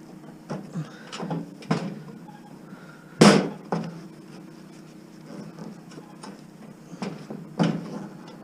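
Scrap being handled: a string of irregular knocks and clanks, about eight in all, the loudest one about three seconds in.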